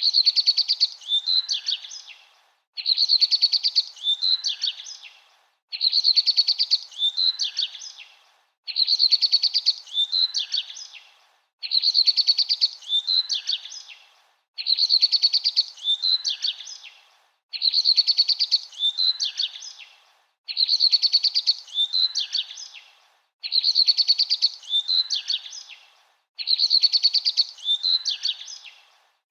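Bird song: the same short, chirpy phrase about two and a half seconds long, repeating every three seconds or so in an identical loop, like a recorded song played over and over.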